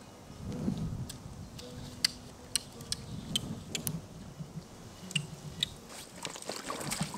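Fly reel's click-and-pawl ratchet clicking in short, irregular spurts while a hooked fish is played on a bent fly rod, over a low rumble.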